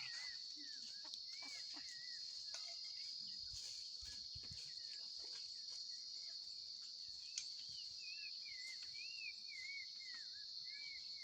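Faint rural ambience: a steady high-pitched insect chorus, with a bird repeating short arched chirps throughout and a single small click about seven seconds in.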